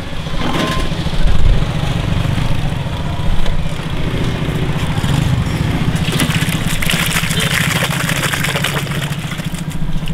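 A steady engine idling throughout. From about six seconds in, soupy stew pours from a plastic bucket into a large steel bowl with a splashing gush for about three seconds.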